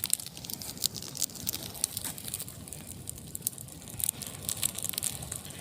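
Large wood fire crackling, with many irregular sharp pops and snaps over a steady hiss.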